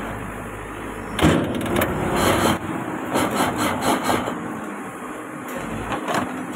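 Backhoe loader's diesel engine running close by, with a run of loud knocks and clatter from about one to four seconds in.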